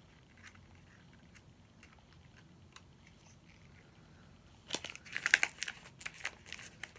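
Mostly quiet handling, then a burst of crinkling and clicking about five seconds in: small plastic packaging being handled and opened.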